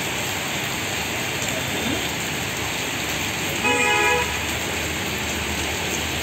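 Heavy rain pouring steadily onto a street, with a vehicle horn sounding once for about half a second near the middle.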